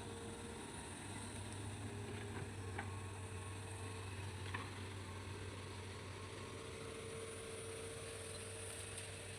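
Hitachi excavator's diesel engine running steadily as a low, even hum, with a few faint clicks.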